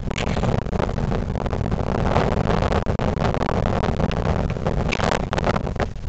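Blizzard wind buffeting the camera microphone: a steady low rumble that swells and dips in gusts.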